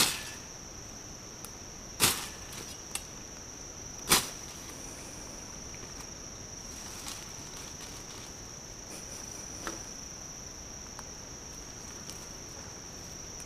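Crickets chirring steadily in the weeds, with two sharp thuds about two and four seconds in from a long-handled tool striking the ground and brush.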